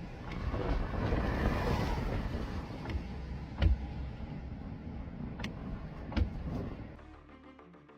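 Storm wind rumbling and buffeting the microphone, with a few sharp knocks; it fades out near the end as soft music comes in.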